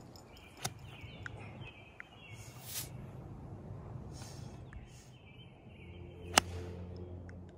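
An 8-iron strikes a golf ball once, a single sharp click about six seconds in. Birds chirp in the background.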